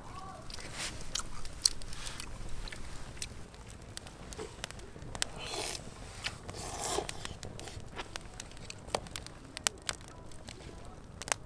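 Crisp, freshly grilled food being bitten and chewed: crunches with scattered sharp clicks, the two loudest crunches a little past the middle.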